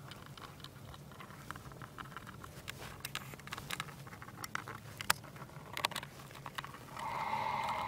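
Faint scattered clicks and crackles of gloved hands handling a plastic battery case lid and the sleeved wires inside it, ending in about a second of steadier rubbing noise.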